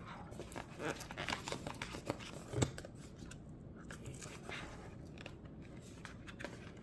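Cardboard packaging being handled: soft rustling and scraping of the box and its inserts, with scattered small taps and clicks and one sharper click about two and a half seconds in.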